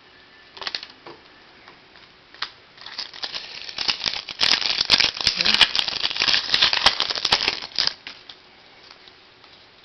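Foil trading-card pack wrapper being torn open and crumpled: a few single crackles, then a dense crinkling that starts about three seconds in and lasts some five seconds.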